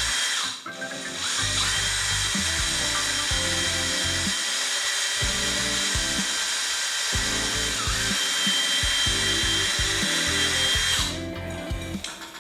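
Power drill with a long drill bit running steadily, boring into a wooden stud, with a high, steady whine; it starts about a second in and stops near the end. Background music plays underneath.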